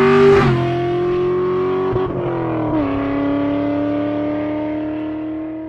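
Car engine running hard, its pitch stepping down sharply twice, about half a second in and again near three seconds in, then holding steady as it begins to fade out near the end.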